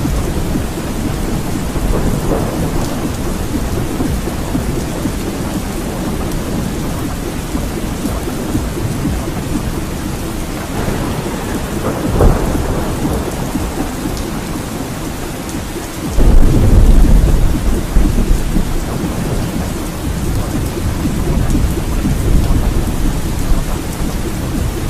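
Thunderstorm: steady rain with rolling thunder. About two-thirds of the way through, a louder clap of thunder breaks in suddenly and rumbles away over a few seconds.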